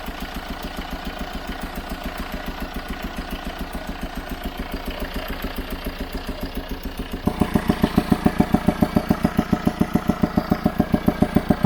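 Chevrolet Tracker engine idling with a steady, regular pulsing. About seven seconds in it suddenly gets much louder and the pulses sharper.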